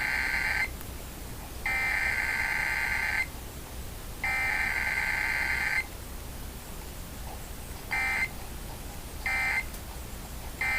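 Emergency Alert System SAME data bursts of a Required Weekly Test. First the end of one header burst, then two more header bursts of about a second and a half each, all as steady two-pitch digital tones. After a pause come three short end-of-message bursts about a second and a half apart, the last starting near the end.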